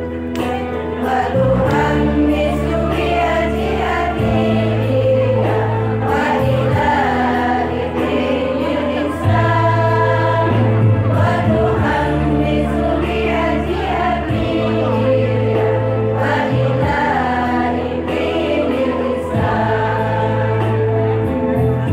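Women's choir singing together over an instrumental accompaniment, with sustained bass notes that change every couple of seconds beneath the voices.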